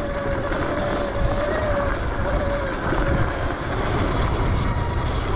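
Electric Sur-Ron Light Bee dirt bike being ridden: a steady whine from the electric motor and drivetrain that wavers slightly with speed and fades out about three seconds in, over a heavy low rumble of wind and riding noise.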